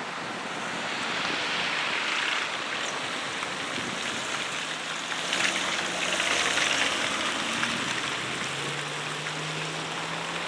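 Cars pulling away across a wet road, their tyres hissing on the wet asphalt. The tyre hiss is loudest as a car passes close, about five to seven seconds in. A low engine hum comes in about halfway through.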